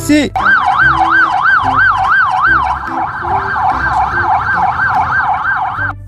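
Police siren wailing in a fast up-and-down yelp, about three sweeps a second, loud and unbroken.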